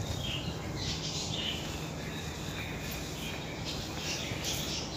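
A cloth wiped by a gloved hand across a tile floor in repeated strokes, each a short swish.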